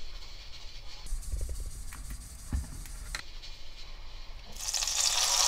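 Gochujang seasoning paste hitting hot oil in a frying pan: a sizzle starts about four and a half seconds in and quickly grows to a steady hiss as the sauce begins to fry. Before that there are only faint handling knocks of the pan and bowl.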